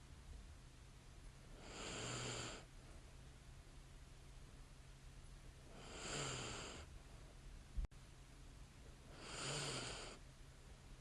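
A sleeping woman's light snoring: three slow breaths about four seconds apart, each a soft rasp with a faint low snore in it. A single sharp click comes between the second and third breath.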